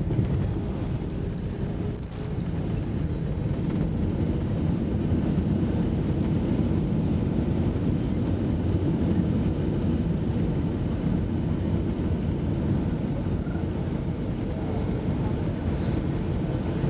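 Airliner landing heard from inside the cabin: a steady deep rumble of engines and rushing air, dipping briefly about two seconds in and then growing a little louder.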